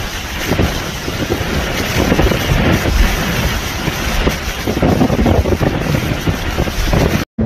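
Hurricane-force wind with driving rain, loud and rushing, the gusts buffeting the microphone in uneven low rumbles. The sound breaks off for an instant near the end.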